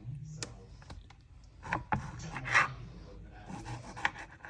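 Kitchen knife cutting a tomato on a cutting board: irregular light clicks as the blade hits the board, with some scraping between them.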